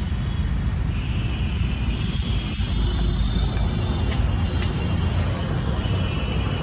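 Steady low rumble of road traffic and city noise, with a faint thin high-pitched hum coming in about a second in.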